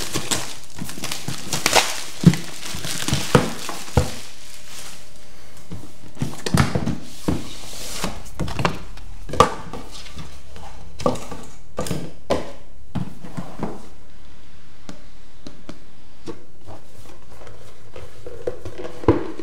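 A cardboard product box being handled. The sleeve is slid off with a scraping rub over the first few seconds. Then the box is lifted, opened and set down, with a string of light knocks and taps.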